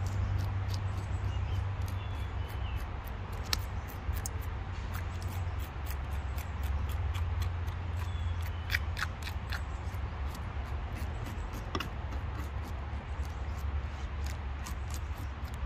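A white bass being scaled on a plastic cutting board: quick, short scraping strokes, about four a second, over a steady low hum.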